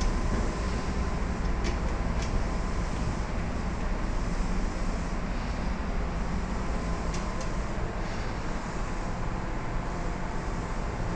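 Tokyu 8500 series chopper-controlled electric commuter train heard from inside the passenger car: steady running noise of wheels on rails and traction motors, with a faint steady whine and a few light clicks. It eases somewhat in the second half as the train slows into a station.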